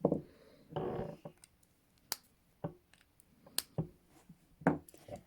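ASP Model 200 hinged steel handcuffs being handled and set for an escape attempt: a few separate sharp metallic clicks as the cuffs are closed and double-locked, with some rustling about a second in.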